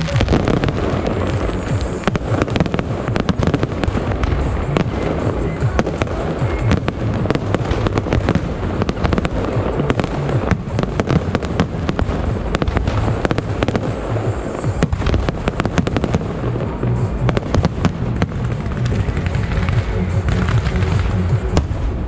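Aerial firework shells launching and bursting overhead in quick, continuous succession: many sharp bangs and crackles, often several at once.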